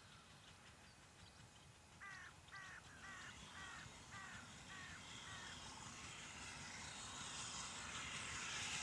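A crow cawing about seven times in quick succession, starting about two seconds in. Under it, the distant noise of an approaching steam train grows steadily louder and is loudest near the end.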